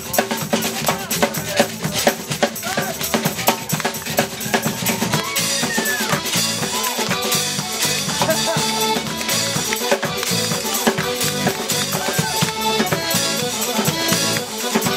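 Live folk band playing an upbeat tune on tuba, melodeon and drum kit, with a steady drum beat. About five seconds in the sound fills out with brighter held notes.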